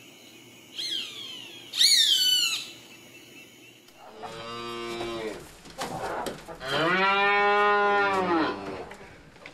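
A roadside hawk gives two high, falling screams, the second broken into quick descending notes. About four seconds in, cattle moo twice: long, low calls, the second lasting nearly two seconds.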